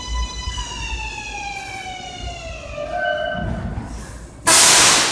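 R188 subway train's motors whining, a chord of tones sliding down in pitch as the train brakes to a stop. Near the end comes a sudden loud hiss of air.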